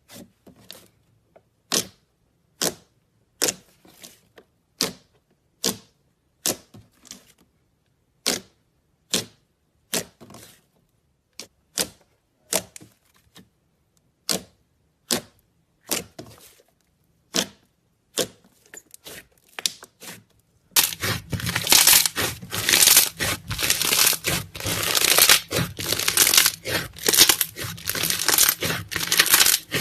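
A series of sharp pops or clicks, roughly one a second. About 21 seconds in they give way to dense, continuous crackling and crinkling.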